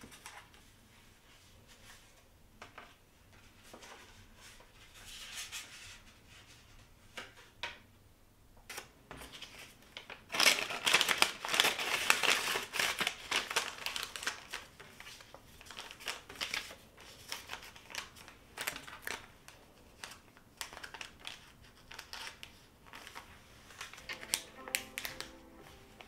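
Crinkling and rustling of a clear plastic bag being handled and opened by hand: only faint clicks at first, a dense stretch of crinkling from about ten to fourteen seconds in, then scattered crackles. Soft music comes in near the end.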